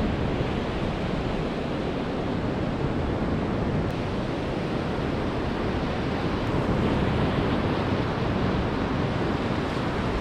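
Sea surf breaking on a sandy beach: a steady, continuous wash of waves with slow swells in level, with wind rumbling on the microphone underneath.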